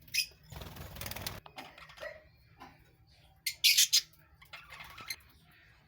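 Budgerigars chirping in short, sharp calls, loudest in a cluster about three and a half seconds in. About half a second in comes a rustling burst lasting about a second.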